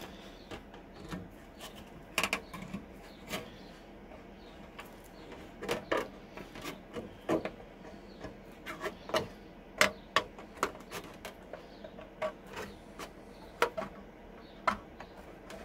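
Hand tin snips cutting thin scrap sheet metal, a run of sharp snips and crunches at uneven intervals, roughly one a second, as the blades close on the sheet.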